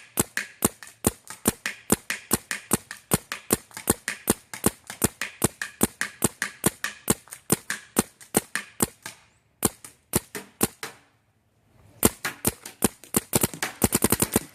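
Planet Eclipse Geo 3.1 paintball marker firing through a Dye carbon fiber Boomstick barrel: a long string of sharp shots about five a second. Two short breaks come about two-thirds through, then a very fast ripple of shots near the end.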